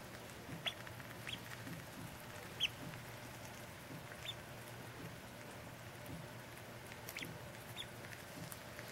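Welsh Harlequin ducklings a few days old, peeping softly: about six short, high peeps, a second or more apart.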